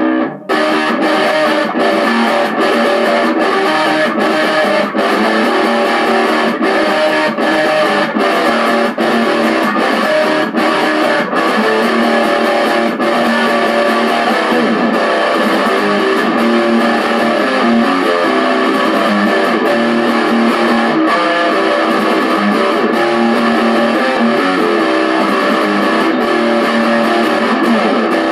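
Electric guitar played with heavy distortion through an Orange Micro Terror amp with the gain all the way up, into a homemade cabinet of three Jensen Mod 20 speakers. It is a run of picked, sustained notes and chords.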